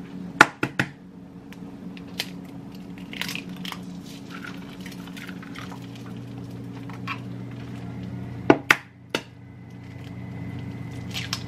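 Sharp clicks and knocks of eggs and kitchenware being handled over a frying pan at the stove: a few near the start and three more about eight and a half to nine seconds in. A steady low hum runs beneath them.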